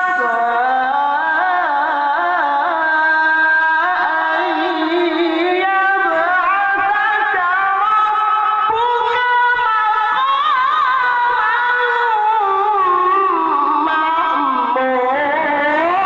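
A man's voice reciting the Quran in the melodic tilawah style, holding long, ornamented notes with a wavering vibrato that slide up and down in pitch.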